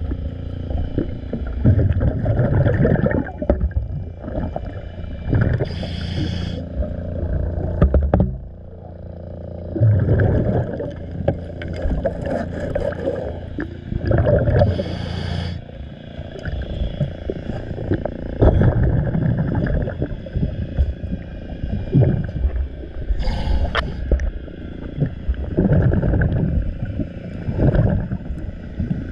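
A scuba diver breathing through a regulator, heard underwater: a short hiss of inhalation about every six to nine seconds, with the rumbling gurgle of exhaled bubbles between breaths.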